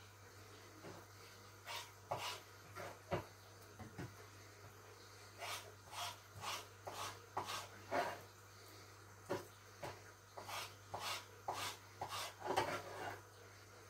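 Irregular short pops and crackles, many in a row and thicker in the second half, as thin slices of raw lamb are laid one by one into oil in a frying pan.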